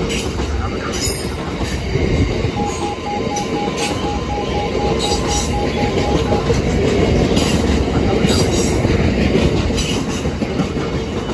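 Freight train of bogie oil tank wagons rolling past at close range: a steady heavy rumble with wheel clicks over the rail joints every second or so.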